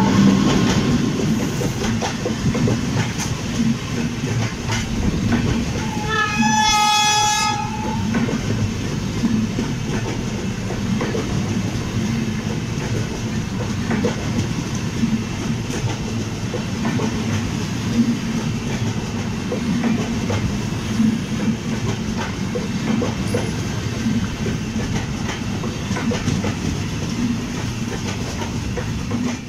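A passenger train running at speed: a steady rumble with the clickety-clack of wheels over rail joints. A train horn sounds briefly, about six seconds in.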